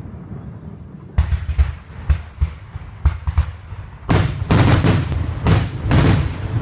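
Fireworks finale: a rapid string of aerial shell bursts going off, with separate booms from about a second in, then a denser, louder barrage of bangs and crackle from about four seconds in.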